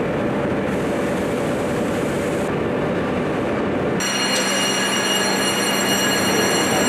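Steady industrial machinery noise in a steel foundry hall. About four seconds in it changes abruptly to a different machine noise, with a low hum and several high, steady whines.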